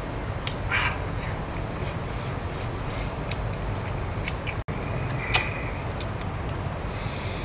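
Eating sounds: chewing, with scattered small clicks of metal chopsticks against a plastic takeout rice container and one sharper click about five seconds in.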